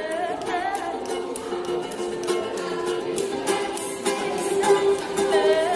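A ukulele strummed in a steady rhythm while a woman sings along.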